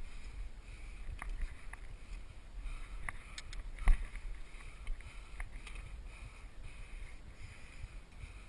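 Scrambling on a rock face: wind rumbling on the microphone, with a few sharp knocks and scrapes of hands and feet on rock, the loudest just before four seconds in.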